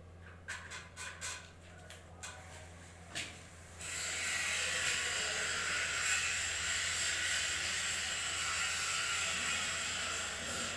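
A few sharp clicks, then a steady hiss that starts about four seconds in, much louder than the clicks, and stops near the end.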